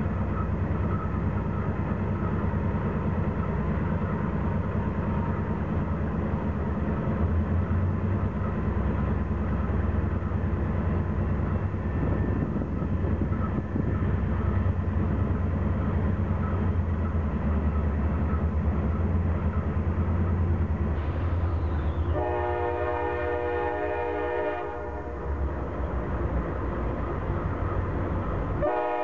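Diesel locomotive rumbling steadily, then a CSX diesel locomotive's air horn sounds a chord for about two and a half seconds, and a second blast starts just before the end.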